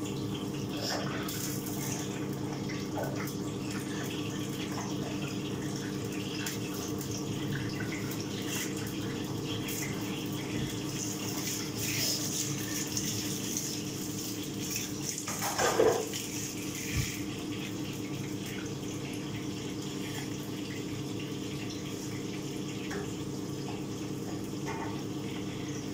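Steady rushing kitchen noise with a low hum running under it, and a short clatter about sixteen seconds in.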